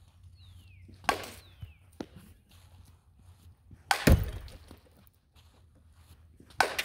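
Softball bat hitting pitched softballs: three sharp cracks about two and a half to three seconds apart, the middle one the loudest, with a lighter knock a second after the first.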